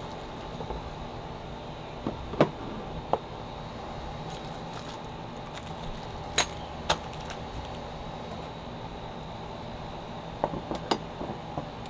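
Metal grilling tools clinking and knocking as they are handled and set down on a table: a few separate sharp clinks, with a small cluster near the end, over a steady background hum.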